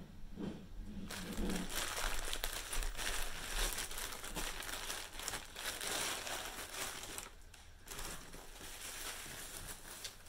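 Plastic mailer bag and tissue paper crinkling and rustling as a package is pulled open and unwrapped. There is a brief pause about seven seconds in.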